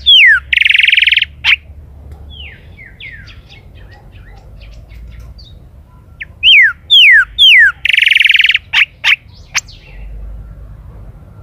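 Chalchalero (golden-billed saltator) singing two loud song phrases about six seconds apart. Each phrase is made of downslurred whistles followed by a buzzy trill and a few sharp notes, with softer notes in between.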